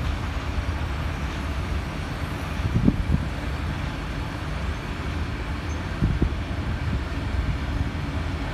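Heritage passenger carriages rolling slowly past on the track, a steady low rumble with a few short knocks from the wheels about three seconds in and again around six seconds.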